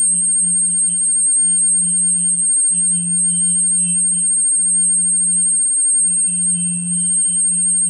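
A steady low hum with a faint high-pitched whine held above it, and a weaker middle tone that fades in and out every second or so.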